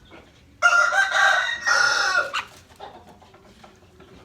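A rooster crowing once: one loud call lasting nearly two seconds, with a short break partway through.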